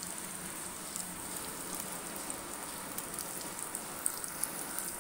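Crushed garlic frying in hot coconut oil over a heated tempering stone in a metal ladle on a gas flame: a steady sizzling hiss with many small crackles and pops.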